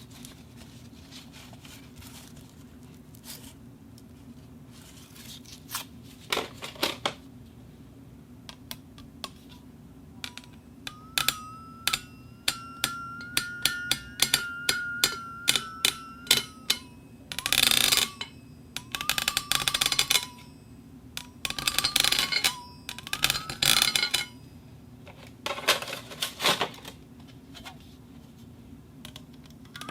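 Glass cup rubbing against a metal plate on a rotating table: scattered clicks at first, then a quick run of ticks under a steady ringing squeal about halfway through, followed by loud scraping bursts about every two seconds, each with a ringing tone.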